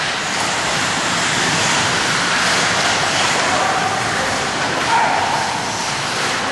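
Steady noise of an ice hockey game in an indoor rink, with a brief louder call or shout about five seconds in.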